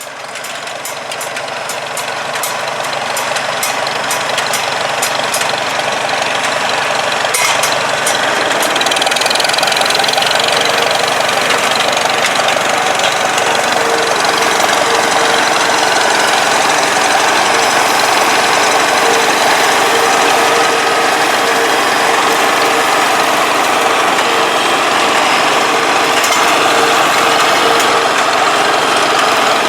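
International 1256 Turbo Farmall tractor's turbocharged diesel engine running under load as it powers an International 430 small square baler picking up straw. The sound grows louder over the first several seconds, then holds steady.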